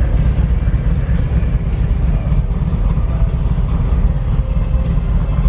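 Steady low rumble of idling vehicle engines.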